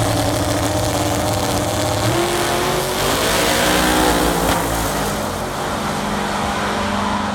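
Drag race car engines at full throttle: a loud, steady low drone that, about two seconds in, gives way to a pitch that climbs and shifts as the cars accelerate down the strip.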